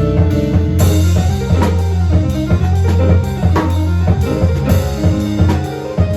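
Live instrumental music: a drum kit played along with a melodic instrument, with a cymbal crash about a second in and steady drum strokes under sustained notes.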